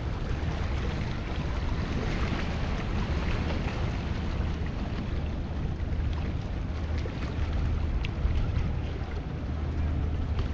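Wind buffeting the microphone: a steady low rumble with a wash of noise over it and no break.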